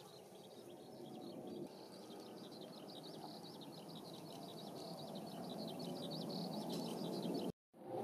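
Steady low outdoor background noise with small birds twittering in quick, high chirps that grow busier through the middle. Everything drops out for a moment near the end, and the twittering does not return.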